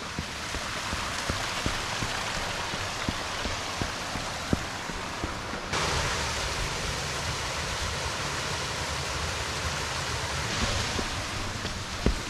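Steady rushing water noise that gets suddenly louder about halfway through, with scattered soft low knocks underneath.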